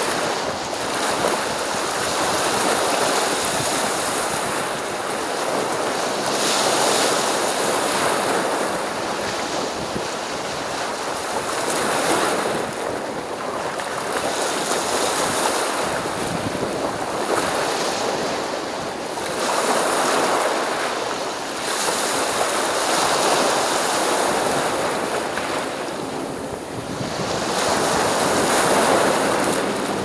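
Sea surf washing onto the shore: a steady wash of water, with a wave breaking and surging louder every few seconds.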